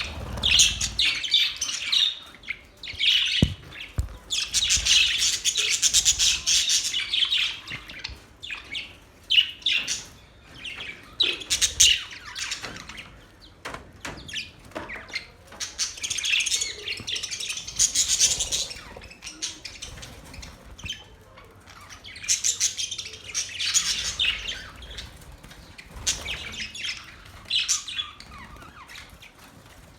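Budgerigars chirping and warbling in bursts of rapid, busy chatter, with quieter stretches between the bursts.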